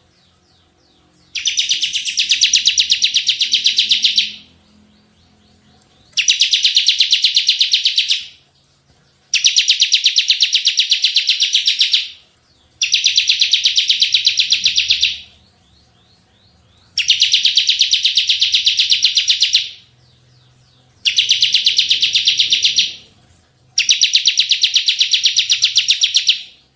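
Bar-winged prinia (ciblek) singing its rapid-fire 'tembakan' song: seven fast runs of sharp, high repeated notes, each two to three seconds long, with short pauses between them.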